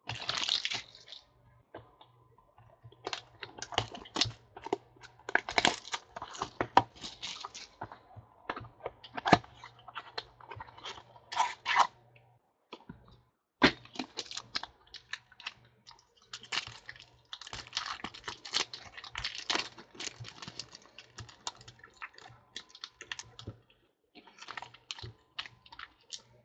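Trading-card packaging being opened and cards handled by hand: irregular rustling, crinkling and tearing with many small clicks, in uneven spurts.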